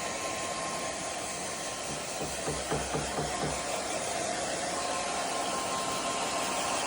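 Hand-held hair dryer blowing a steady rush of air with a faint whine. Between about two and three and a half seconds in, a brief low rattling of about six quick pulses.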